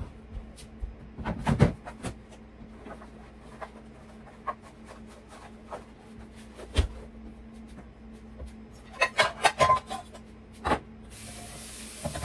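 Kitchen handling noises: scattered knocks and clicks as a refrigerator is opened and things are taken out and set down, with a quick run of clatters about nine to ten seconds in. Near the end a steady hiss starts.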